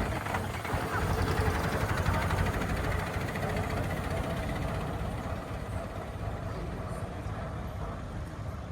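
A motor vehicle's engine running, growing steadily fainter as it moves away.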